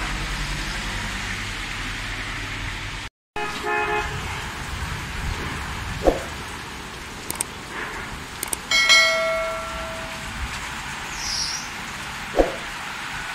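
Heavy rain pouring on a road for the first three seconds, then a brief cut-out and a short honk-like tone. Over fainter rain, the sound effects of a subscribe-button animation follow: two quick whooshes about six seconds apart, a few mouse clicks, and a bell chime that rings and fades over about a second.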